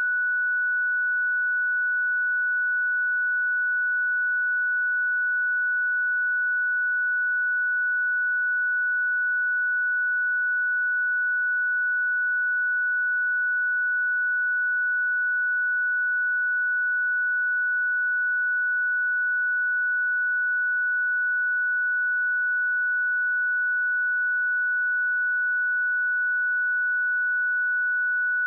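Pure 1477 Hz sine-wave test tone, one steady high-pitched note held at constant level, with no harmonics.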